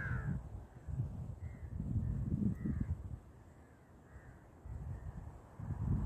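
A crow cawing: one clear harsh caw at the start, then fainter caws spaced through the rest. Underneath, wind buffets the microphone in gusts with a lull in the middle.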